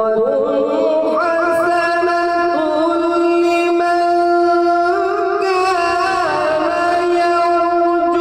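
A man's voice reciting the Quran in melodic tilawat style, drawing out one long held note with small ornamental turns and a brief step up in pitch midway.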